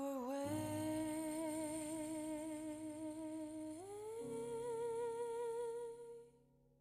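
Soundtrack music: a voice humming two long held notes with vibrato over a soft low accompaniment. It slides up to the higher second note about four seconds in, then fades out shortly before the end.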